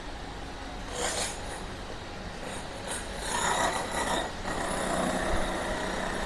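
Background noise of a busy railway station platform: a steady mixed hum and hiss, with a short rasping rub about a second in and a louder stretch of indistinct activity a few seconds later.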